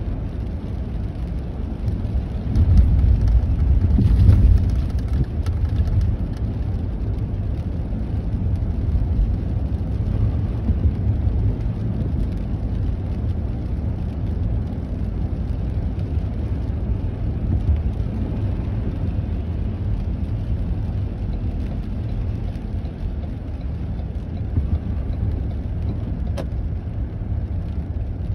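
Road noise inside a moving car: a steady low rumble of tyres on a wet road and the engine, swelling for a couple of seconds a few seconds in.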